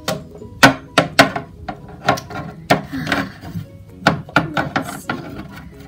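Plastic Littlest Pet Shop figure tapped and hopped across a plastic toy dollhouse floor: a quick, irregular string of sharp clicks and knocks, each ringing briefly, over faint background music.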